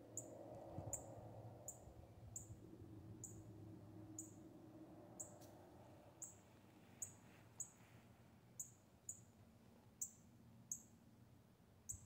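A small bird repeatedly giving short, very high chip notes, spaced irregularly about one or two a second, over a faint low hum.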